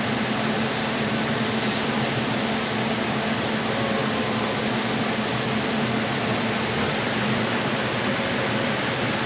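Steady rushing noise of a running ICF passenger coach, heard from aboard: wheels rolling on the rails and air rushing past, with no breaks or rises.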